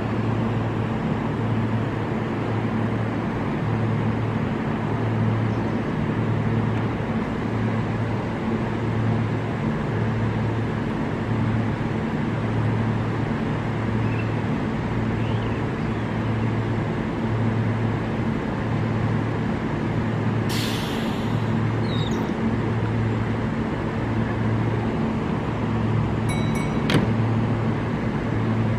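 A Kintetsu limited express train standing at a platform, its on-board equipment giving a steady low hum that pulses about once a second. About two-thirds of the way through there is a short hiss of released air, and near the end a sharp click.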